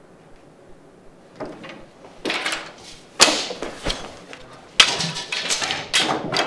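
A run of knocks and clatter: two sharp bangs, about three and about five seconds in, with rustling and scraping around them and a small click between.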